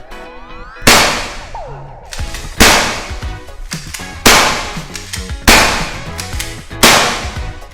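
Five gunshots at a shooting range, one about every one and a half seconds, each with a short echo, over background music.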